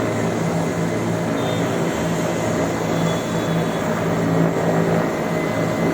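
Helicopter running steadily: a constant engine and rotor drone with a steady low hum.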